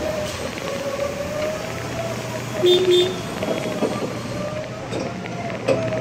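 Forklift running with a steady whine that rises and falls slightly, and two quick horn toots about halfway through.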